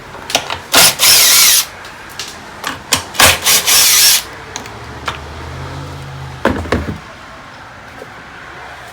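Power driver with a 10 mm socket spinning bolts loose in short bursts. Two runs last about a second each, with brief blips between them and a few clicks after about six and a half seconds.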